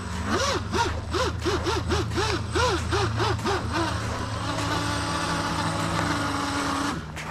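Twin brushless motors of an RC mini catamaran speed boat running at speed: the whine rises and falls repeatedly, about three times a second, then holds steady for a few seconds and cuts off near the end.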